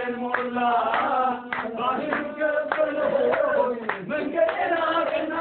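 Voices singing with hand clapping.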